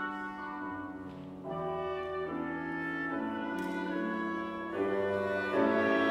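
Chamber ensemble playing a slow piece: clarinet, flute and oboe hold long notes over piano, changing notes every second or so and growing louder about five seconds in.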